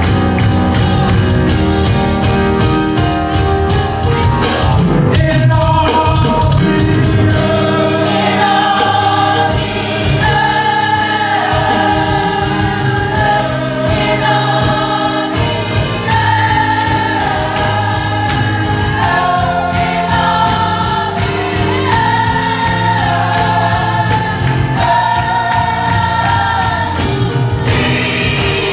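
Gospel choir singing a worship song with full instrumental accompaniment, loud and steady.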